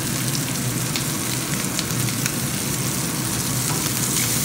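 Diced carrots, garlic and meat sizzling in oil in a frying pan, with a few light clicks of a wooden spatula stirring them.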